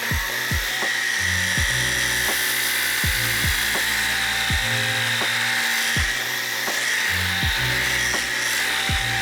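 Redmond vacuum cleaner running steadily with a high whine as it sucks up spilled semolina, over background music with a steady beat.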